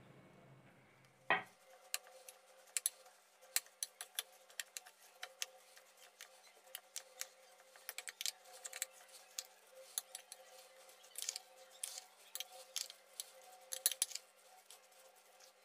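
Metal spoon stirring damp, crumbly semolina batter in a glass bowl, with irregular clinks and scrapes of the spoon against the glass. A single sharp knock about a second in.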